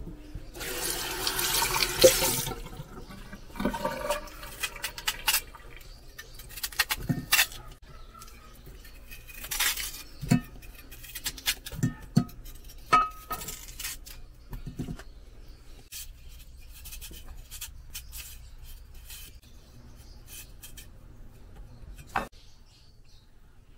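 Kitchen tap water running in short bursts as peeled malanga is rinsed, between the knocks and clatter of a kitchen knife cutting chunks of it into a metal cooking pot.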